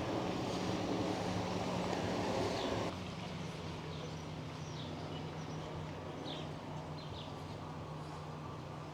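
Outdoor ambience: scattered short bird chirps over a steady low hum and a rushing noise. The noise drops suddenly about three seconds in.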